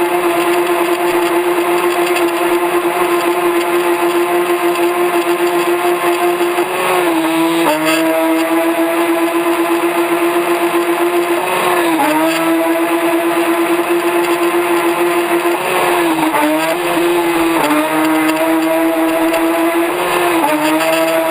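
RC boat's motor running at a steady high-pitched whine, heard from on board the boat, dipping briefly in pitch about four times.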